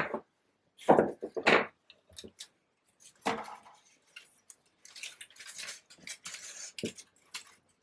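Handling noise from wrapping floral tape around a paper-flower bouquet's stems: a few knocks and taps about one and three seconds in, then paper and tape rustling.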